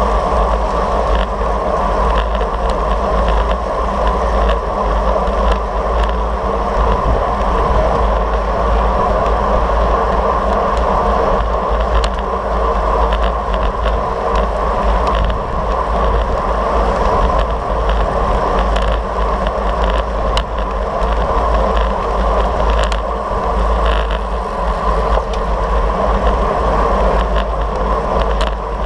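Steady wind rush and tyre-on-road noise from a bike-mounted action camera riding in a pack of road bicycles, with a heavy low rumble of wind on the microphone and frequent small clicks and rattles from the bike and camera mount.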